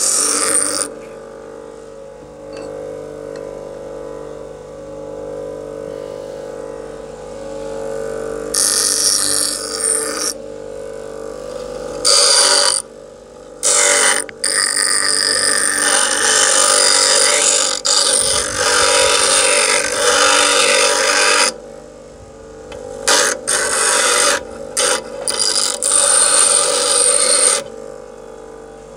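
Bench grinder running with a steady motor hum while a steel file is pressed against the wheel in repeated passes of harsh grinding. The grinding starts about eight seconds in, the longest pass lasts about seven seconds, and there are several short touches near the end.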